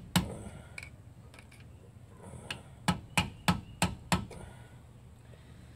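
Hammer tapping a screwdriver against the tab of the star lock nut on a 1975 Dodge B300's rear axle hub, to bend the tab back and free the nut: sharp metal-on-metal taps. There is one tap right at the start, then a run of five at about three a second, around three seconds in.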